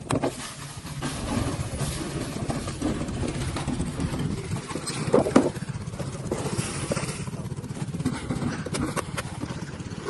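Engine of a wooden outrigger fishing boat running steadily, with a few short knocks over it.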